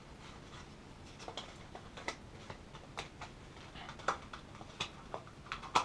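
A paper insert handled by gloved hands: quiet, irregular paper rustles and small crinkling clicks.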